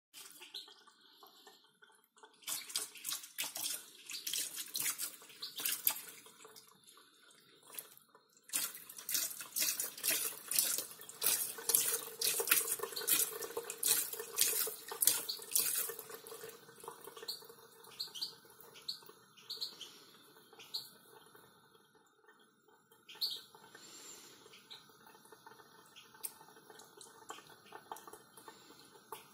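Kitchen tap running a thin stream into a stainless steel sink while a cat laps at the stream, making a fast series of splashy ticks. The ticks are densest in the first half and thin out later.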